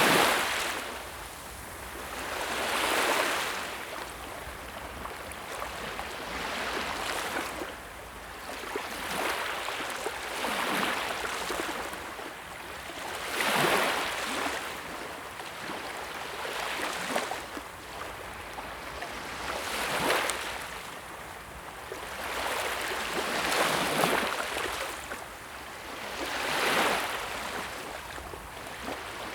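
Sea waves breaking and washing ashore, one swell about every three to four seconds over a steady hiss of surf.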